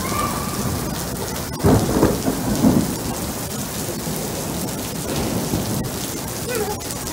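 Steady rain from a thunderstorm, with a low rumble of thunder swelling about two seconds in and fading about a second later.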